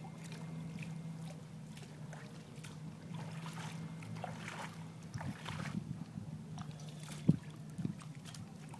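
Motorboat engine idling as the boat comes slowly toward its trailer, a steady low hum. A few light knocks and splashes in the second half, one sharper knock near the end.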